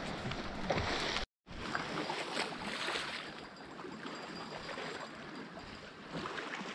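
Sea water lapping and splashing at the shore, an even rushing noise with small scattered splashes. The sound cuts out completely for a moment just over a second in, then carries on.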